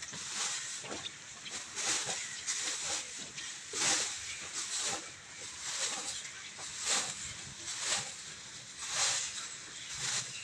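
Long bundled-grass broom (jharu) sweeping a dry earthen floor: repeated swishing strokes, roughly one a second.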